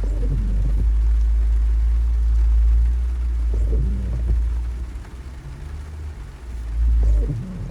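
Off-road vehicle engine running at low speed as it crawls over rock, a deep steady rumble with three short changes in pitch.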